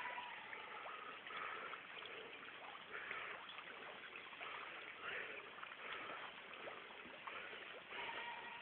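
Faint steady rush of running water, with faint distant voices now and then.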